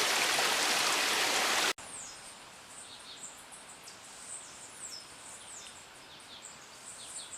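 Steady rush of water from a small cascade into a pool, which cuts off suddenly about two seconds in. After it come quiet forest sounds with many short, high chirps falling in pitch, from birds.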